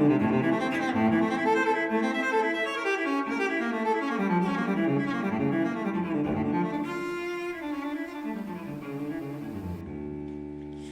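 Solo cello playing a slow melodic passage, settling on a long held note near the end.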